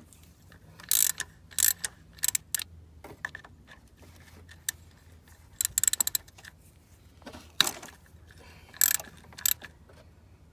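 Hand ratchet clicking in about eight short bursts as it turns a T55 Torx bit, backing out the large hex-socket plugs in an engine's cylinder head.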